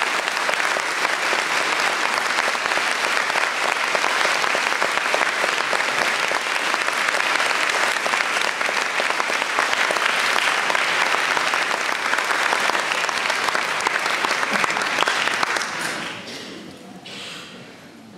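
Audience applauding steadily. The applause dies away about sixteen seconds in, leaving a few last scattered claps.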